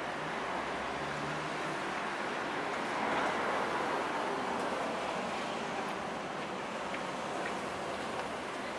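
Road traffic on a city street: a steady noise of passing cars, a little louder about three seconds in.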